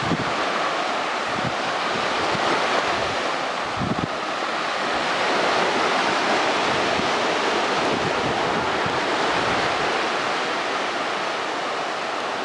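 Ocean surf breaking and washing ashore in a steady rush, with wind gusting over the microphone in irregular low rumbles.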